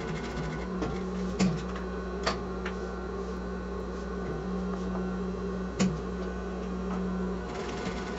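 Sewing machine running steadily, stitching a pocket onto fabric, with a short break about four seconds in. A few sharp clicks stand out, the loudest about one and a half and six seconds in.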